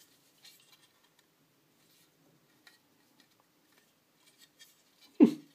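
Faint clicks and rustles of hands handling the Argon ONE case parts, prying at the magnet-held cover on its aluminium top. Near the end there is one short, louder sound.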